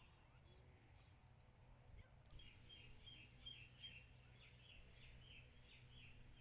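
Faint chirping of small birds: a quick run of short, high chirps, several a second, starting about two seconds in, over a low steady hum.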